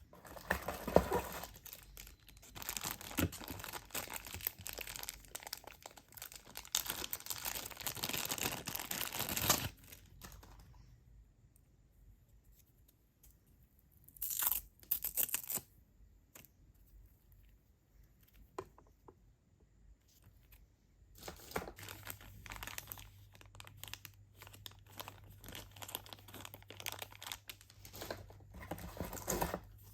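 Keyboard packaging being torn and crinkled open, in long stretches of rustling with a short loud burst in the middle and quieter pauses between.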